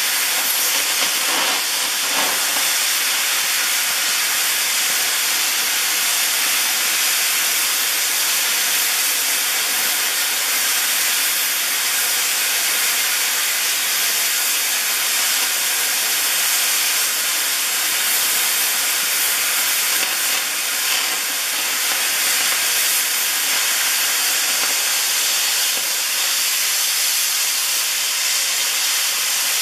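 Robot-guided cutting torch bevelling a 50 mm steel plate: a loud, steady hiss of the cutting jet, with a faint steady high tone under it.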